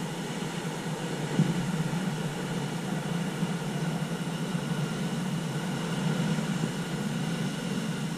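Ocean surf breaking and washing over shoreline rocks: a steady rushing rumble, with one short louder bump about a second and a half in.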